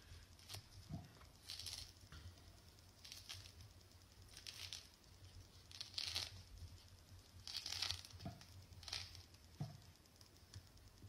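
Golden nugget mandarin peel being pulled away from the fruit by fingers. Faint, short tearing and crinkling sounds come about every second or so.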